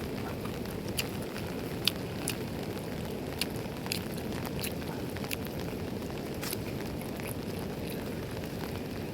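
Heavy rain falling steadily, with the sharp taps of single drops striking close by every second or so.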